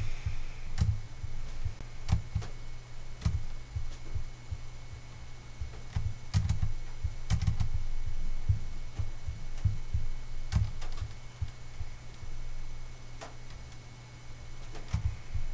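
Scattered clicks of a computer mouse and low thumps of hand and desk handling while cells are selected and the sheet is scrolled, over a steady low electrical hum.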